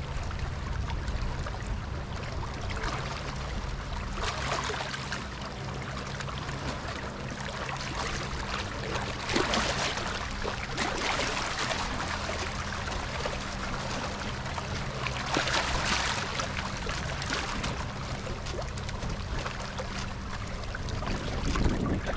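Rushing, washing water that swells in several surges, over a low steady hum.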